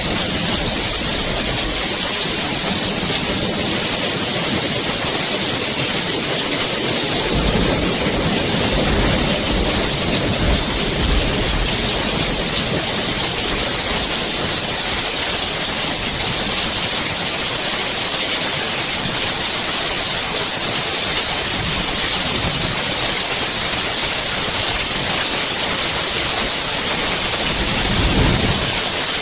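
Steady rain, a dense even hiss with no let-up. Low rumbles swell up about a quarter of the way in and again near the end.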